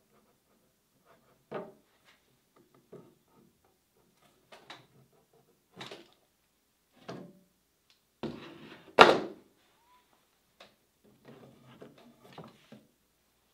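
Screw clamps being loosened and taken off a wooden board: scattered clicks, knocks and clunks of metal clamp parts and wood, with a louder clatter about nine seconds in.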